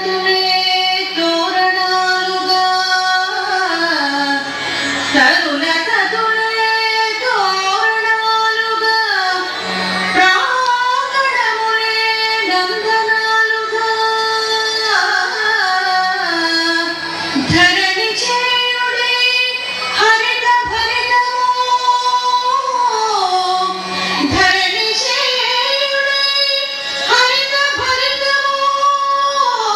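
Song accompanying a classical dance performance: a high voice sings slow, long held notes that step up and down in pitch over instrumental accompaniment, with a few sharp strokes now and then.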